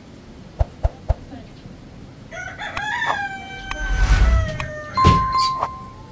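A rooster crowing: one long crow that starts about two seconds in, falls in pitch, and ends on a loud held note. Three sharp clicks come in the first second.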